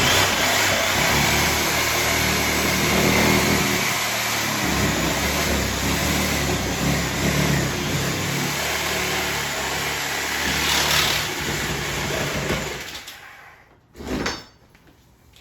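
Reciprocating saw (Sawzall) cutting through half-inch drywall sheetrock, running steadily and then stopping about thirteen seconds in. A single knock follows about a second later.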